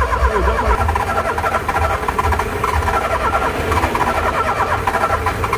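Car starter solenoid chattering in a rapid 'tec tec' clicking as the key is held to start, without the engine catching.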